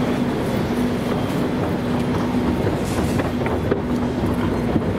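Metro escalator running: a steady mechanical rumble with a humming tone that pulses on and off about twice a second, and scattered light clacks from the moving steps.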